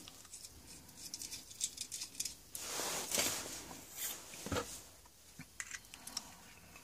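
Light clicks and small metallic scraping as brass SMA antenna adapters are handled and screwed onto an FPV patch antenna, with a brief rustle about halfway through and a soft knock a little after.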